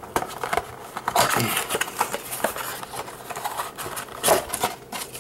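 Hands handling trading card packs in their wrappers and the cardboard blaster box: irregular rustling, crinkling and scraping, with a busier burst about a second in and another just after four seconds.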